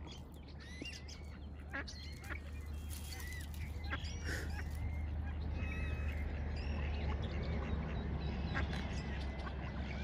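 Ducks quacking and small birds chirping in short, scattered calls, over a low rumble that grows louder about halfway through.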